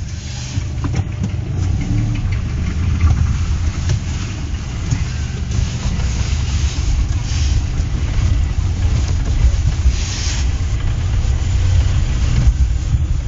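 Car driving, heard from inside the cabin: a steady low engine and road rumble, with a brief hiss about ten seconds in.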